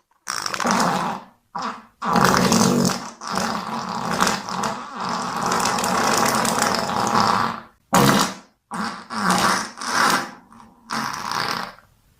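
A run of fart sounds with a rough, buzzy rasp. A short one comes first, then one long drawn-out fart of nearly six seconds, then four or five shorter ones near the end.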